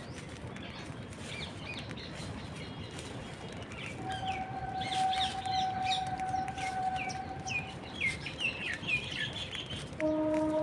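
A flock of birds at a feeding spot chirping and calling, with many short, quick calls that grow busier midway. A steady tone sounds for a few seconds in the middle, and a louder, lower tone starts near the end.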